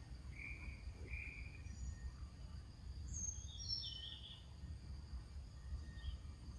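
Outdoor insect drone, cricket-like and steady, with a few short bird chirps: two in the first couple of seconds and a falling run of chirps about three to four seconds in, over a low rumble.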